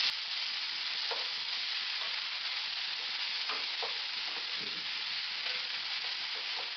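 Sliced onion, capsicum, tomato and cabbage sizzling steadily in a kadhai over a high gas flame as a spatula stirs them, with a few short scrapes of the spatula against the pan.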